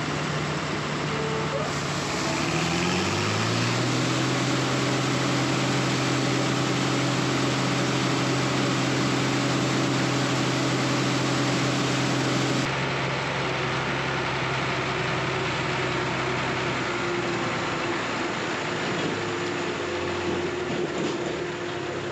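Heavy diesel engine of harvest machinery running steadily; a few seconds in it revs up and holds a higher, even speed. About halfway through the sound changes suddenly to a lower, rougher engine running.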